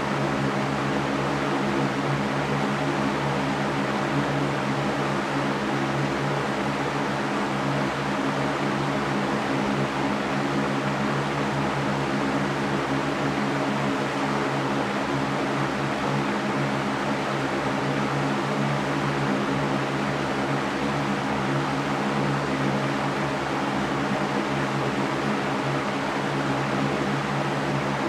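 Electric fan running steadily: an even rush of air over a low motor hum, with no change in speed.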